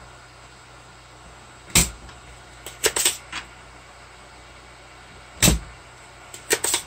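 Sharp clicks and knocks from work on an electronics bench, in two matching groups: a single hard knock, then about a second later a quick run of three or four clicks, twice over.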